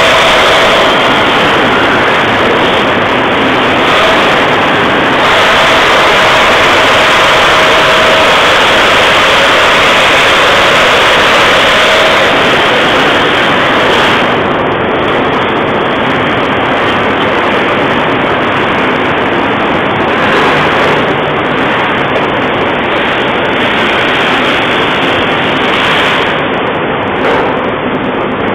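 Steel section rolling mill machinery running: a loud, steady mechanical din with no distinct strokes, and a faint hum through roughly the first half.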